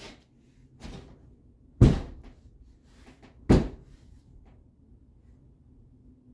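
Two loud bangs on a plywood wall, about two seconds apart, after a couple of lighter knocks.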